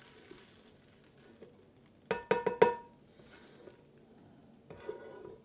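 A metal frying pan knocked or tapped with a utensil, a quick run of about five ringing clanks about two seconds in, with a faint knock near the end.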